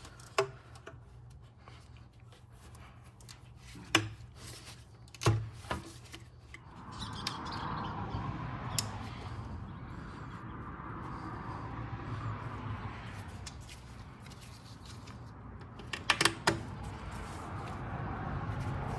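Hand tools and bolts handled on the engine: several sharp separate metallic clicks and knocks in the first six seconds, then a steadier scraping rustle with a couple more clicks near the end, as the 10 mm bolts of the coolant crossover pipe are started.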